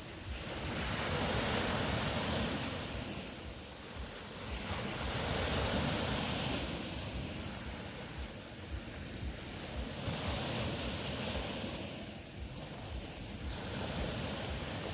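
Ocean surf breaking and washing ashore, a steady rush that swells and falls back about every four seconds.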